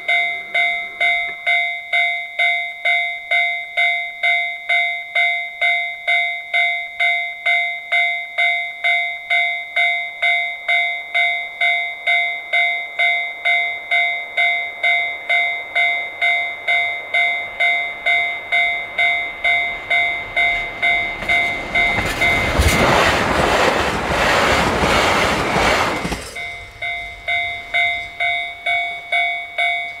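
Japanese level-crossing warning bell ringing steadily at about two dings a second. About 21 seconds in, a KiHa 261 series diesel limited express rushes through the crossing for about five seconds, drowning out the bell, which rings on after it passes.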